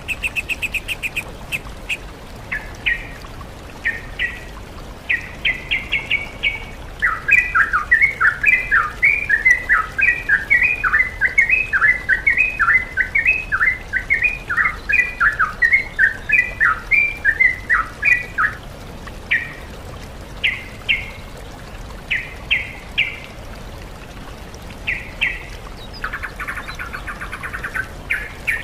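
Songbird song from a masteran training track blending trucukan (sooty-headed bulbul) with kacer (oriental magpie-robin) and cucak ijo (greater green leafbird). Short repeated notes in small groups, then about seven seconds in a long, fast run of quick up-and-down chattering notes lasting about ten seconds. After that come scattered short phrases and, near the end, a brief buzzy rattle, all over a steady background hiss.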